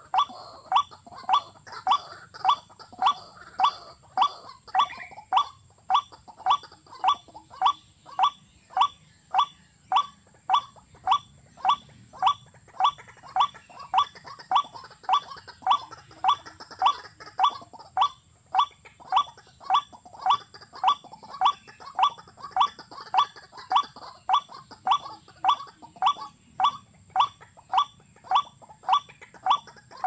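Water bird calling: one short, clipped, slightly falling note repeated very evenly, almost twice a second, without a break. A steady high hiss runs behind it.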